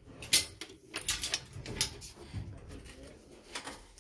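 A run of sharp knocks and clatters, the loudest about a third of a second in and several more over the next second and a half.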